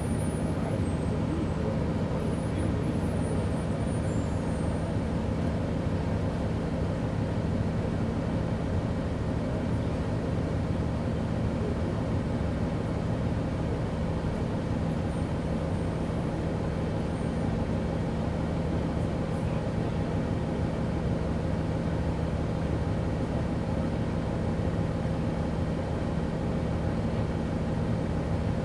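The Cummins ISL inline-six diesel of a 2011 Gillig Low Floor BRT transit bus with an Allison transmission, heard from aboard the bus. The engine runs steadily with a constant low hum.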